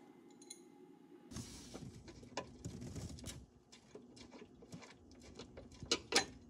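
Faint clicks and taps of a small steel strut bracket and its ball-stud screw being handled and set down by hand on the car's sheet-metal body, with a couple of sharper metal clicks about six seconds in.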